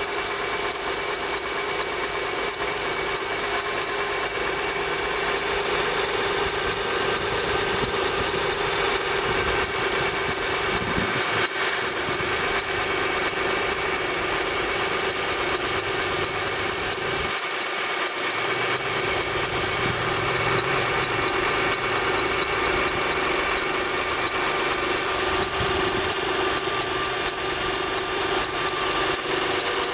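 Honda Pilot's V6 engine running cold with a rapid, steady ticking knock, a noise that is heard only on a cold engine and goes away once it has warmed up.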